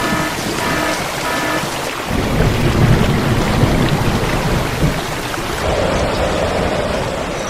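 Heavy rain hissing steadily, with a deep rumble of thunder from about two seconds in.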